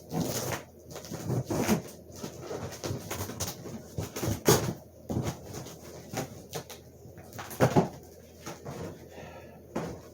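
Cardboard box and packing paper being handled and pulled open: irregular rustles, scrapes and knocks.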